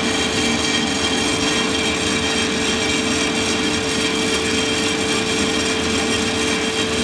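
Santoker R6 drum coffee roaster running mid-roast: a steady mechanical whir of the drum and fan with beans tumbling inside, over a steady hum. The beans are nearing first crack, and no cracks are heard yet.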